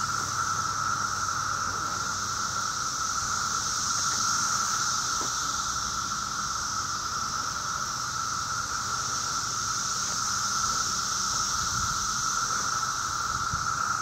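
A dense chorus of male 17-year periodical cicadas calling: a steady, unbroken high-pitched squeal made of two constant pitches, one mid and one higher, their mating call.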